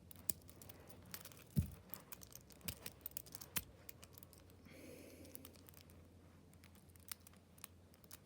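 Small TSA combination luggage padlock being handled and worked: scattered light clicks and knocks, with one heavier thump about one and a half seconds in and a brief rustle around five seconds.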